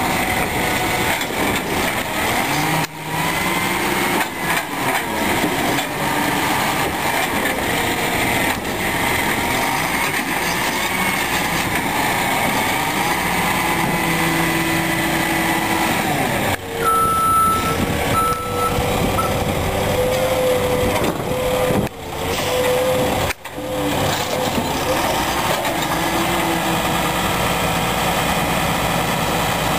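Heil Formula 7000 automated side-loader garbage truck running, its grabber arm's hydraulics whining as the arm lowers and sets the emptied cart back down. A few short high beeps come just past halfway.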